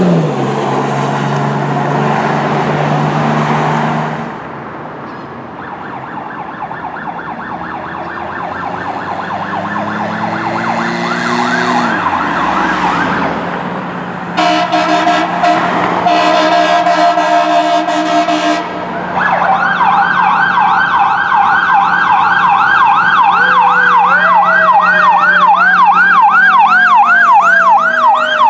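Fire engines running with sirens. A truck pulls away in the first few seconds. A fast electronic yelp siren then approaches and grows louder. About halfway through, several seconds of blaring air-horn blasts give way to a loud yelp siren, with a lower siren tone winding slowly up and down beneath it.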